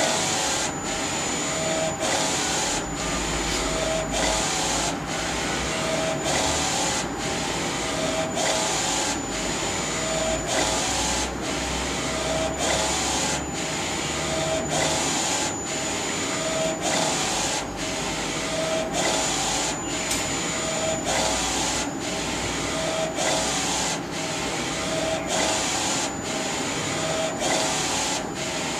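NC-610A direct-to-garment T-shirt printer printing: its Epson DX5 print-head carriage shuttles back and forth with a steady motor-and-belt whir, breaking off briefly at each reversal about once a second. A faint high whine comes and goes.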